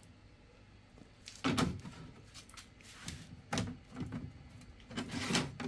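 3D-printed plastic jig and a cut perspex sheet knocking and clicking together as the jig is handled and fitted over the sheet: a few separate knocks, then a longer shuffle of handling near the end.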